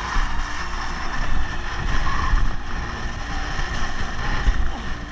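Strong wind buffeting the camera's microphone in gusts of over 60 mph, with a gusty low rumble, over the rushing hiss of water and spray under a windsurf board planing at speed.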